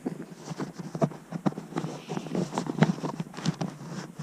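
Chairlift clattering: a run of short, irregular clicks and knocks, several a second.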